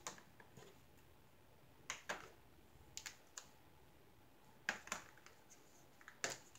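Small clear plastic drill containers clicking and tapping as they are handled and set into a clear plastic storage case. The light clicks come singly or in pairs every second or so.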